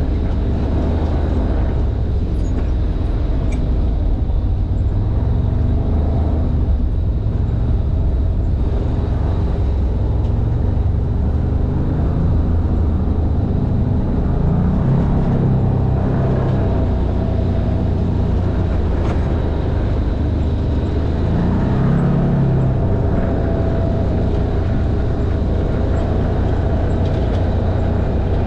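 Side-by-side off-road vehicle's engine running under way, heard from the open cab: a steady low drone, with the engine note climbing and falling back about halfway through and again about three quarters of the way in.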